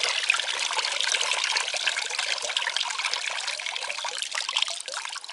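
Water running out of the drainage holes of a black plastic plant pot and splashing into a bucket of water below, thinning slowly. The potting mix has been soaked through and is being left to drain.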